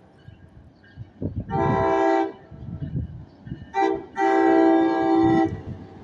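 Horn of an NJ Transit ALP-45DP locomotive on an approaching train, sounding the end of the long-long-short-long grade-crossing signal: a long blast, a very short blast, then a final long blast.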